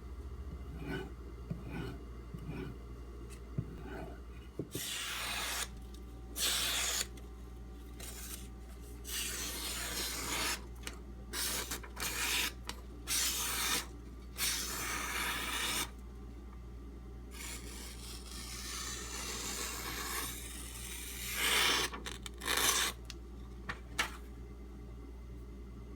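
A steel knife blade is stroked across a whetstone, polishing the bevel. The strokes come irregularly, each a half-second to two seconds of rasping, with short pauses between them. The first few seconds hold only faint light ticks.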